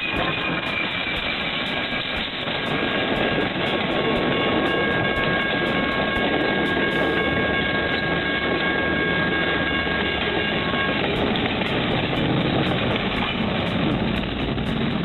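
Southern Pacific GS-4 steam locomotive No. 4449 and its passenger cars running past at speed: a steady rushing rumble of the passing train, with a high steady ringing tone over it that stops about eleven seconds in.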